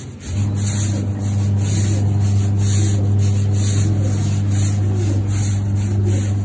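A stiff push broom scrubbing a wet carpet in repeated strokes, about two a second. About a third of a second in, an electric motor starts up with a steady low hum that runs on under the scrubbing. Pigeons coo faintly now and then.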